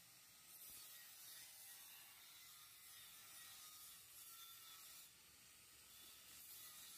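Angle grinder cutting a metal pipe, heard faintly: a hissing grind that eases off about five seconds in and picks up again about a second later.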